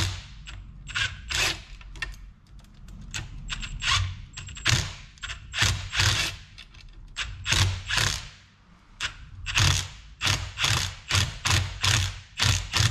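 Cordless drill-driver running in short bursts of the trigger as it tightens the screw of a Jubilee clip (worm-drive hose clip). The bursts come closer together near the end as the clip nips up tight.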